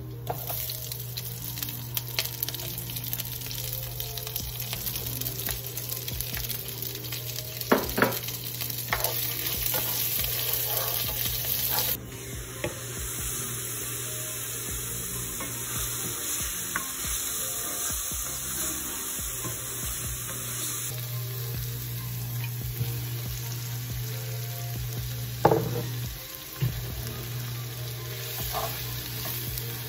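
Vegetables frying in oil in a nonstick frying pan, a steady sizzle, with a few sharp clicks of a utensil against the pan as the food is stirred.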